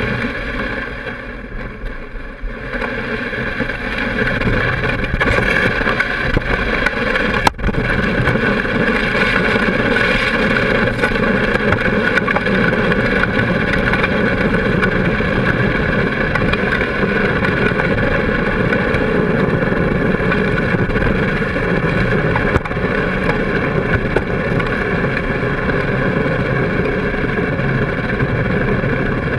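Can-Am Spyder three-wheeled motorcycle's Rotax V-twin engine running as the machine rides along, building up over the first few seconds and then holding steady, with wind buffeting the microphone.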